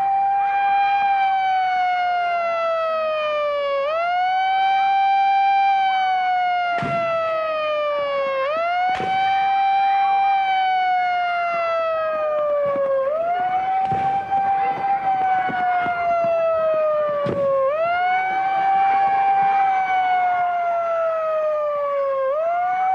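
Siren wailing in slow cycles, each one a quick rise in pitch followed by a long, slow fall, repeating about every four and a half seconds. A few sharp cracks cut through it, four times in all.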